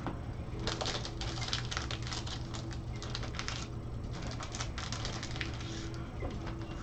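Crackling plastic and quick clicks of a trading card and its clear plastic holder being handled by gloved hands, in a long spell starting about half a second in and a shorter one near the middle, over a steady low hum.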